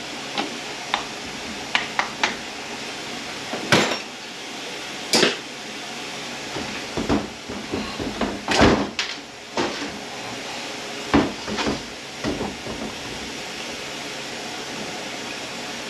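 Scattered clicks, clinks and knocks of hand tools and metal parts being handled during teardown of a Ford 10R80 ten-speed automatic transmission, with a few sharper knocks about four, five and nine seconds in.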